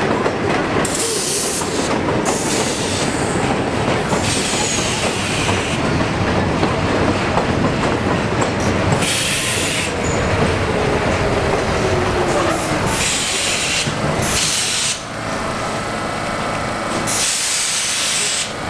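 Vintage R33 and R36 subway cars rumbling and clattering along an elevated track, slowing to a stop at the platform. Repeated short hisses sound over the rumble, and a falling whine comes about two-thirds of the way through as the train slows. The rumble drops off a little after that.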